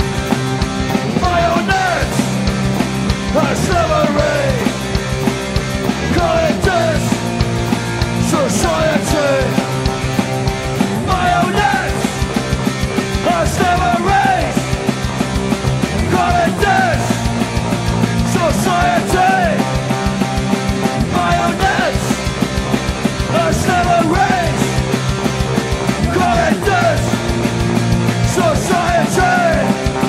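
Oi!/streetpunk band recording: a loud, driving rock song with electric guitars, bass and drums keeping a steady beat.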